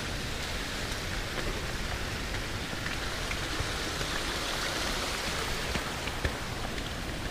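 Steady rain, with scattered small drop taps.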